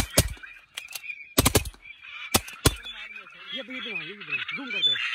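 A volley of shotgun blasts from several guns, about eight shots in the first three seconds, some only a fraction of a second apart, over a steady dense chatter of waterfowl calling. Near the end a low call wavers up and down for about a second and a half.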